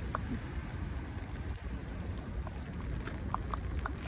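Heavy rain falling steadily, with scattered drops ticking on things close by and a low rumble underneath.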